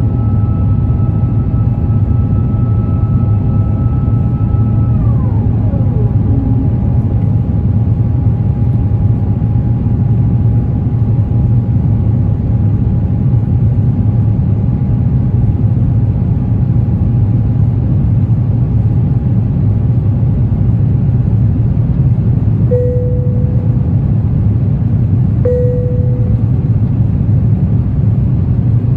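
Steady loud cabin rumble of an Airbus A350 climbing after takeoff, its Rolls-Royce Trent XWB engines and airflow heard through the fuselage. A high whine drops steeply in pitch about five seconds in, and two short tones sound about three seconds apart near the end.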